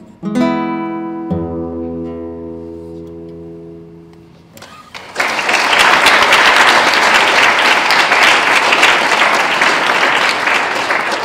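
A guitar plays the closing chords of a piece, two plucked chords with a low bass note, and lets them ring out and fade. About four and a half seconds in, the audience breaks into loud, steady applause.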